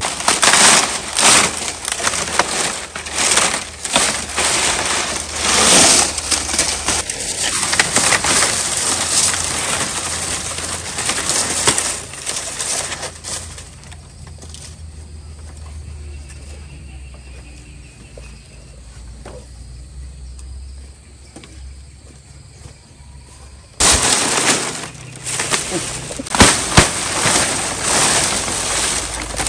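Dry palm leaves rustling and crackling as they are handled, loud and irregular for the first dozen seconds, quieter for about ten seconds, then loud again near the end.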